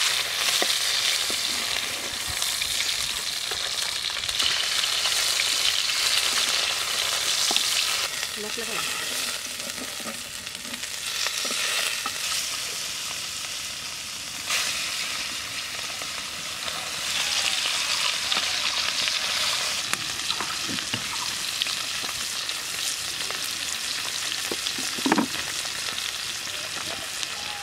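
Tilapia pieces frying in hot oil in a pan, a steady sizzle that swells and eases, with a spatula turning the fish now and then. A brief louder sound about 25 seconds in.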